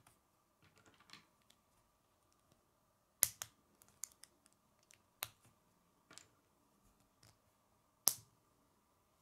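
K'nex plastic rods and connectors snapping together in the hands: a handful of sharp clicks a second or so apart, the loudest about three seconds in and again near the end, with light plastic handling rattle between them.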